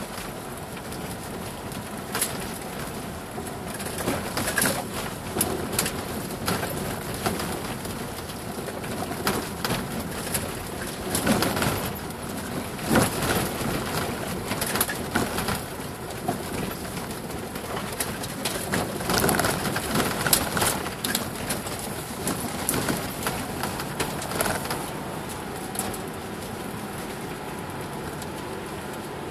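Cabin sound of a 2007 Subaru Forester driving over a rough forest dirt track: a steady hum of engine, tyre and gravel noise, broken by many knocks and rattles as the car goes over bumps. The knocks are thickest and loudest in the middle, and the sound settles to a steadier run near the end.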